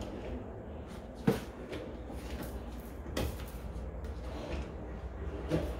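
Handleless kitchen cabinet drawers and doors being opened and shut by hand: two sharp knocks about two seconds apart, and a softer one near the end.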